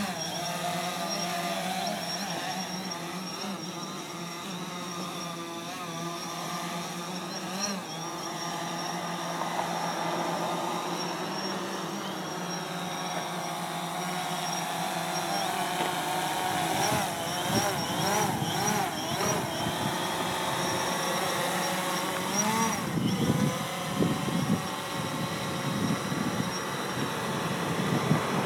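Multirotor camera drone's propellers and motors humming with a steady high whine. From about halfway through, the pitch wavers up and down as the motors change speed while the drone manoeuvres.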